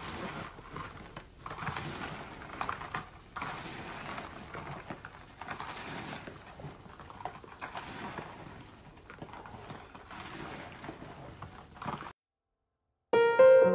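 Chopped green plums and sugar being tossed and turned by gloved hands in a plastic basin, giving an irregular rustling that stops suddenly about twelve seconds in. Piano music starts just before the end.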